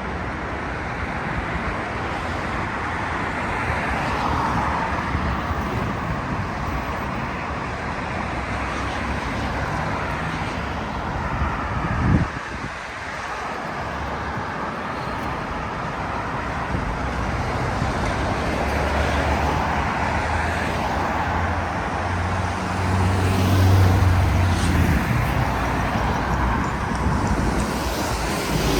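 City road traffic going by steadily, with a heavier vehicle's low engine hum growing louder in the last third. There is a brief knock about halfway through.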